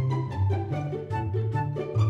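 Instrumental background music: string-like notes over a bass line that steps from pitch to pitch.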